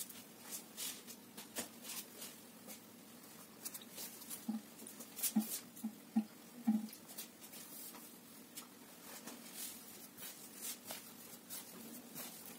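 Hands kneading a soft yeast dough for paska on a floured wooden board: faint scratchy rustles and soft pats, with a few short low pats around the middle.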